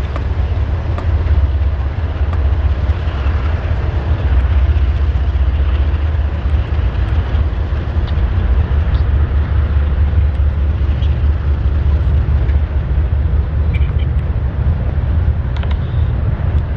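Freight train of double-stack container cars rolling past close by: a loud, steady rumble of steel wheels on the rails.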